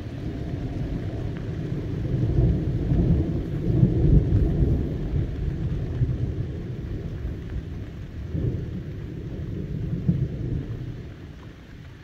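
Thunder rolling in a deep rumble that builds to a peak and swells once more before dying away, with rain falling underneath.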